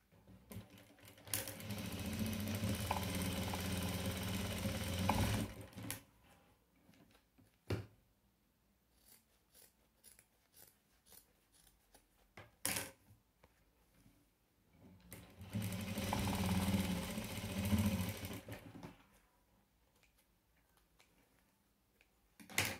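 Sewing machine stitching a seam in two runs, the first about four and a half seconds long and the second about three and a half seconds. Between the runs and near the end come a few short sharp clicks.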